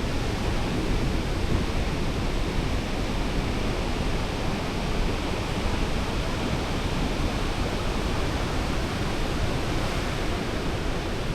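Steady rushing noise of sea surf on a beach, even and unbroken, with no separate wave crashes standing out.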